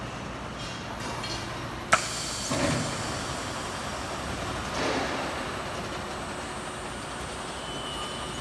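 Powered pallet roller conveyor line running with steady machine noise as it carries stretch-wrapped pallets of board. A sharp clack about two seconds in, then dull thuds just after it and again near five seconds.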